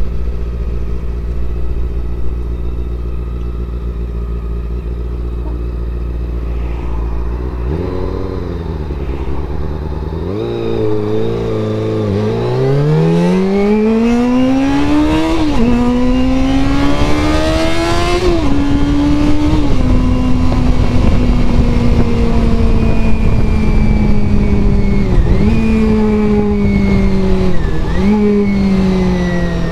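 Honda CBR400RR (NC23) inline-four motorcycle engine heard through a helmet camera's microphone: a steady low note at first, then pulling hard with a rising pitch that drops sharply at two upshifts, then cruising with a slowly falling note and two brief dips in pitch near the end.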